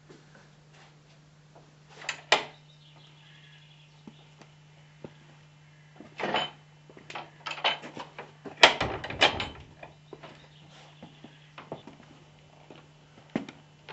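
Scattered knocks, scrapes and creaks of objects being handled and moved, like rummaging through wooden shelving. The loudest, longest cluster comes about nine seconds in. A steady low hum runs underneath.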